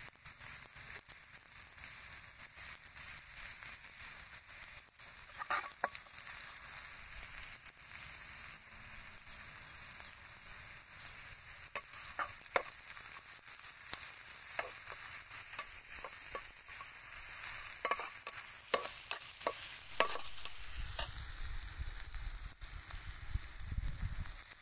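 Sliced onion, red chili and garlic sizzling steadily in oil in a nonstick frying pan, with a metal spatula stirring and clicking against the pan from about five seconds in.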